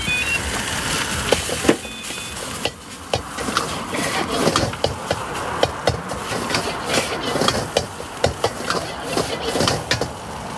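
Irregular sharp knocks and taps of cooking utensils at a street-food stall as an order is prepared, over steady background noise, with a couple of short high beeps in the first two seconds.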